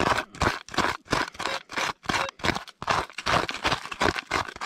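A green plastic hand scoop scraping and digging into dry, stony dirt, in quick repeated strokes of about three a second.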